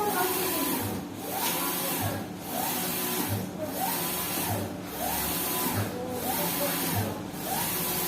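Big Prestige flatbed UV printer printing, its print-head carriage sweeping back and forth about once a second. Each pass has a rising, steady, then falling motor whine with a hiss, and a brief pause between passes.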